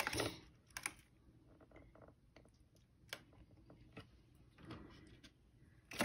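Faint, scattered light clicks and taps, about five in all and a second or so apart, from a wire birdcage being handled while a parakeet is coaxed out of its box inside it.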